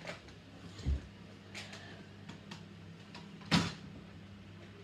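A few short clicks and knocks: a dull thump about a second in and a louder, sharper knock about three and a half seconds in, over a faint steady low hum.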